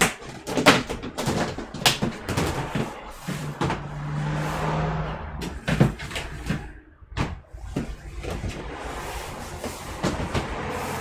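Hands rummaging for a spare DDR4 RAM stick: irregular clicks, knocks and clatter of parts and containers being handled, with a few seconds of scraping and rustling about four seconds in.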